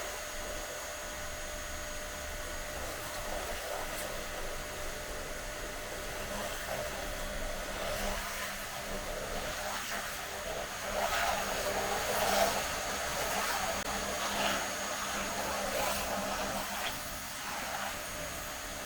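Makita 240 V electric pressure washer running, a steady motor-and-pump whine with hissing spray that grows louder and rougher from about eight seconds in until near the end.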